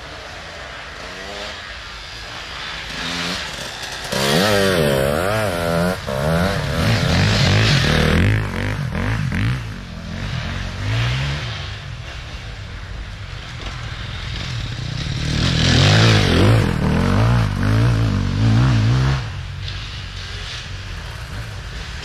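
Enduro motorcycles revving hard as they ride past, engine pitch swinging up and down with the throttle. The loudest passes come about four seconds in and again from about fifteen to nineteen seconds.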